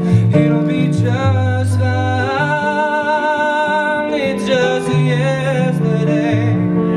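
A man singing live, accompanied by a Yamaha keyboard and an electric bass guitar. The voice holds a long note with vibrato from about a second in, then sings a shorter phrase, over stepping bass notes.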